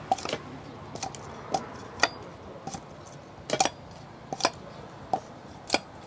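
Machete-style cleavers striking and shaving the charred skin off grilled bamboo tubes of sticky rice (cơm lam): sharp, irregular knocks and clinks, about one every half second.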